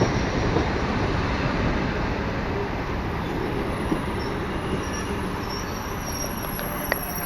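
ED4M electric train moving along the platform track: a steady rumble of wheels on rails that slowly eases off as it slows, with a faint high wheel squeal.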